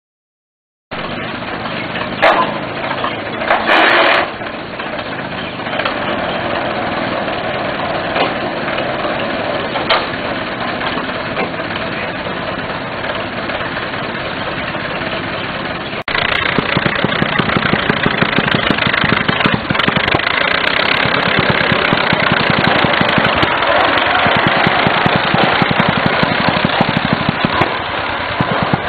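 Rail tractor's engine running, a steady mechanical clatter, with a couple of short loud sounds a few seconds in. About halfway through the sound cuts to a louder, closer run of rapid, even engine beats.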